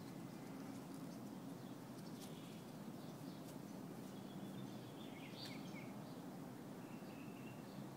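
Faint, steady background noise, with a few faint clicks early on and some faint, short high chirps about halfway through and again near the end.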